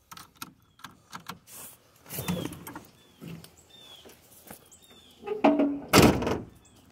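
Scattered clicks and knocks with one louder thump about six seconds in, and a bird chirping several times in short falling notes.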